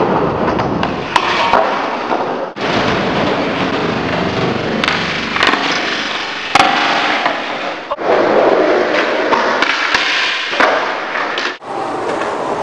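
Skateboard wheels rolling on concrete, with sharp clacks and thuds of the board popping, landing and hitting obstacles. The sound cuts abruptly between takes a few times.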